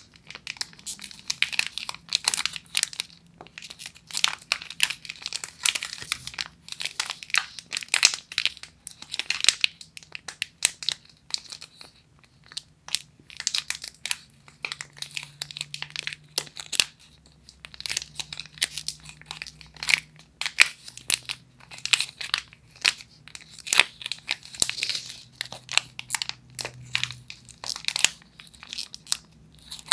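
Hands crinkling, squeezing and twisting the plastic wrapper of a Millennium Air chocolate bar: a dense run of sharp crackles, with a brief lull about twelve seconds in.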